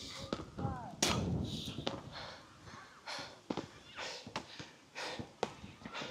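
A person breathing hard after exertion, with a scattering of sharp knocks and clacks.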